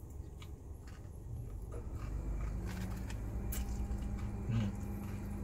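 Mouth sounds of eating crispy fried chicken: biting and chewing, with a few sharp clicks. From about halfway a low steady hum joins in.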